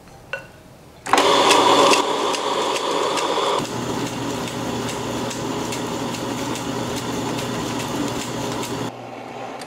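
Tabletop stone wet grinder running, its drum and stone rollers churning a chocolate mixture of melted cocoa butter, cocoa powder, milk powder and sugar to grind the sugar fine and make the chocolate smooth. A steady motor hum starts about a second in, louder for the first couple of seconds, then runs evenly until it cuts off near the end.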